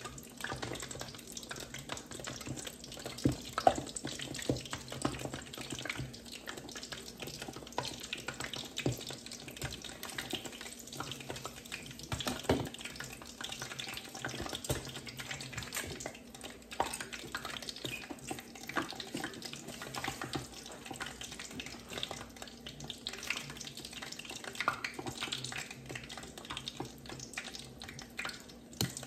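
Lumpia frying in hot oil in a deep stainless pan: a steady crackling sizzle, with a few sharp clicks of metal tongs against the pan.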